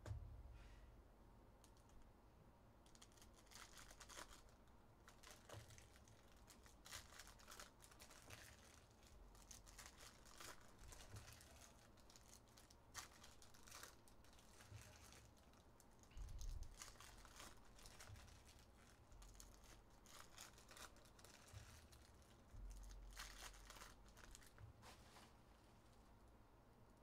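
Faint crinkling and tearing of foil trading-card pack wrappers as packs are opened and the cards handled, in short irregular rustles and clicks, with a couple of soft low bumps against the table.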